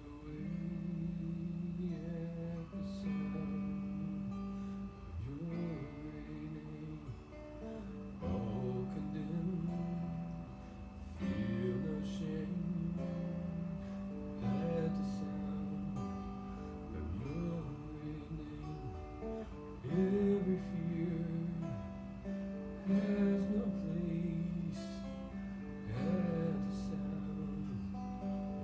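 Acoustic guitar strummed in steady chords, with a voice singing or humming a melody over it.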